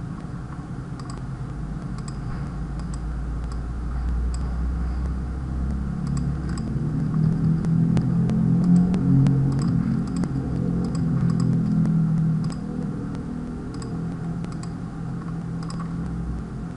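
Scattered clicks of a computer mouse and keyboard, over a low rumble that grows louder in the middle and then eases off.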